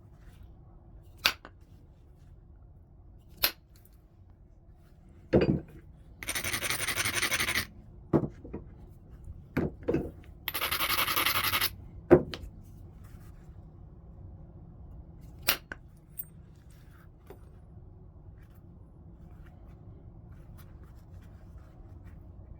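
Stone being flintknapped into a point: sharp clicks and a heavier knock as flakes are taken off, and twice, for about a second each, a gritty scraping as an abrading stone grinds the edge.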